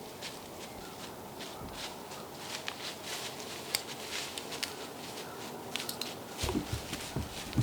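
Footsteps crunching through dry leaves: a run of irregular crackles, with a few heavier low knocks near the end.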